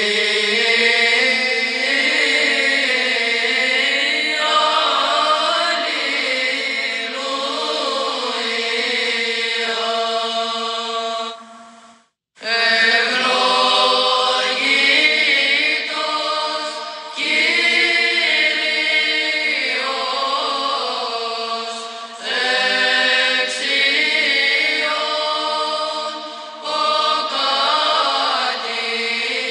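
Background music: vocal chant, a sung melody over a steady held low drone, with a brief break about twelve seconds in.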